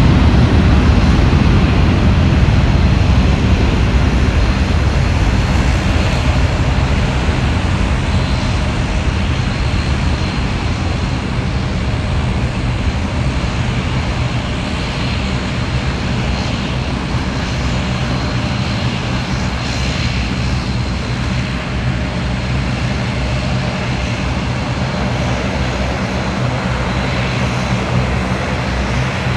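Airbus A380 jet engines running as the airliner taxis out: a deep rumble with a faint steady high whine. The rumble is strongest at first and eases over the first ten seconds or so, then holds steady.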